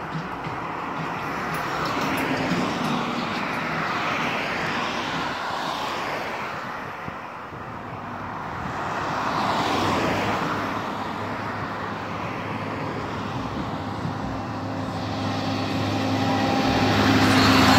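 Road traffic: cars swishing past one after another on a highway. In the last few seconds a school-bus-type bus's engine approaches, its low steady note growing louder.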